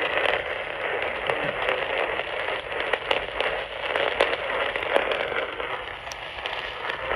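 Weather radio receiver putting out steady static hiss with scattered crackles and clicks: dead air on the channel, with no voice or alert tones.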